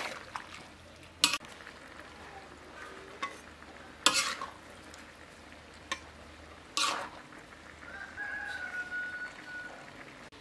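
A metal spatula scrapes against a wok and plate several times in sharp strokes while a garlic chive stir-fry is scooped out, over a faint frying sizzle. Near the end a rooster crows in the background.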